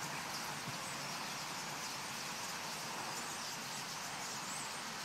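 A large flock of common starlings calling all at once, a steady dense chatter of high chirps and whistles over a constant hiss.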